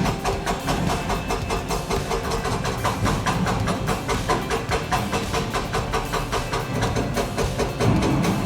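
A heavy machine's engine running steadily under a rhythmic background beat of about four to five ticks a second.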